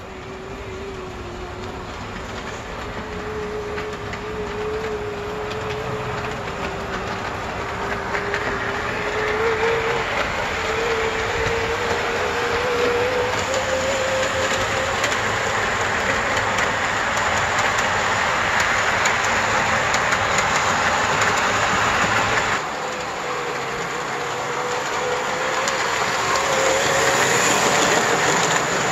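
Brass O-scale model Chicago & North Western E4 Hudson locomotive and its cars running on the track: a motor whine that slowly rises in pitch over the rumble and clatter of metal wheels on the rails. It grows louder as the train comes near, drops suddenly about two-thirds of the way through, then builds again as the cars pass.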